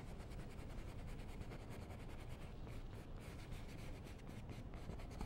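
Faint scratching of a paintbrush's bristles across canvas in many quick, short strokes as oil paint is blended.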